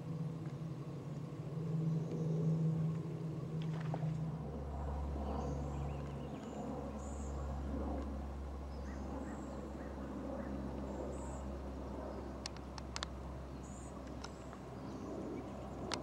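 Steady low mechanical hum, deepening to a lower rumble about four seconds in. Faint high bird chirps come through in the middle, and a few sharp clicks sound near the end.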